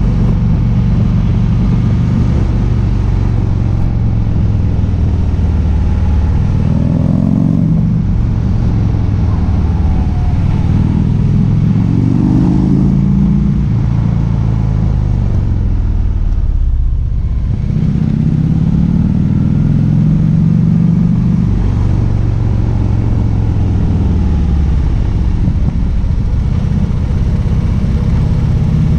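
Harley-Davidson V-twin motorcycle engine, heard from on board, its revs repeatedly rising and falling as the rider accelerates and backs off through bends. The throttle drops off briefly about 17 seconds in, then the engine pulls again, over a steady rush of wind and road noise.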